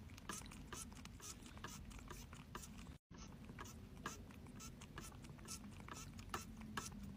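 Cat licking water from the nozzle of a hand-held water bottle: quick wet clicking licks, about two to three a second, over a faint low hum. The sound breaks off for a moment about three seconds in.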